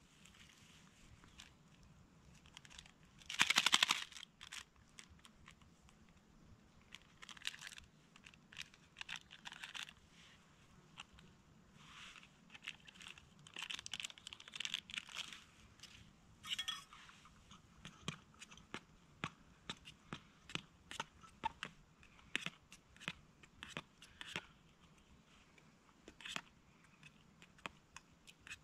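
Camp cookware being handled: light metal clicks and knocks, with a short loud rustle about three and a half seconds in and a run of evenly spaced light clicks through the second half.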